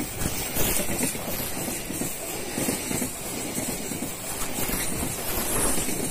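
Passenger coaches of a train rolling past close by, their wheels rumbling on the rails with irregular clacks.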